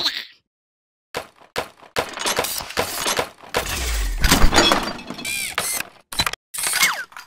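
Cartoon sound effects of a clunky toy robot: a quick run of clanks, knocks and crashes, with a few short squeaky chirps between them, starting after about a second of silence.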